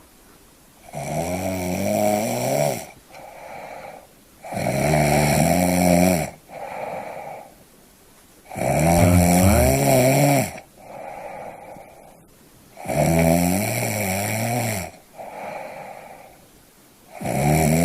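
A person snoring: a loud snore with a wavering pitch about every four seconds, each followed by a shorter, quieter breath. Four full snores, with a fifth starting near the end.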